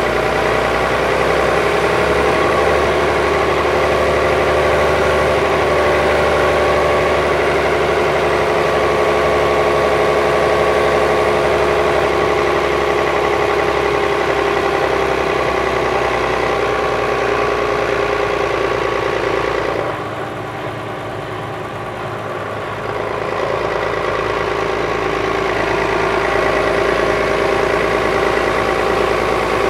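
Volvo B12B coach's DH12E 12-litre straight-six diesel idling steadily while the bus stands parked. About two-thirds of the way through, the sound drops and thins for about three seconds, then comes back to its earlier level.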